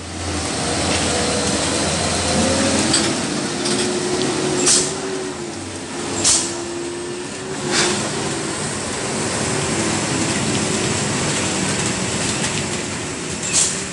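Heavy diesel trucks, among them a Hino dump truck, running slowly through a hairpin bend on a wet road, the engines droning with a wavering tone. Short sharp air-brake hisses break in several times.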